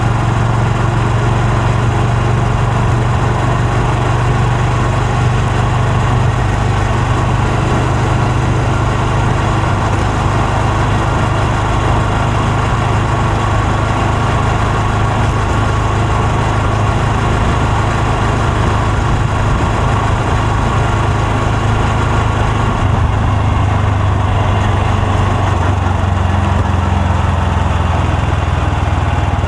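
Honda Super Cub C125's single-cylinder four-stroke engine and exhaust running steadily, the note dropping slightly lower about three-quarters of the way through.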